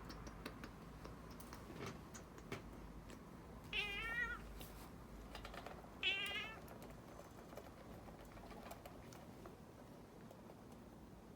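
Domestic cat meowing twice in protest while its claws are clipped, each meow wavering in pitch, with scattered light clicks in between.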